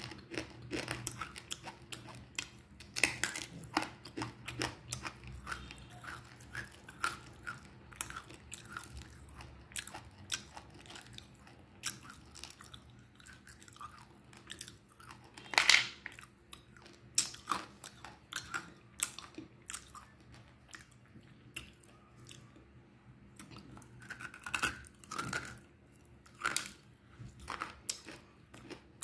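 Chewing a mouthful of crunchy baked edible clay with the mouth closed: a steady run of dry crunches and crackles, with one much louder crunch about halfway through. A crunch this clear is the sign of dry clay that has not taken up moisture.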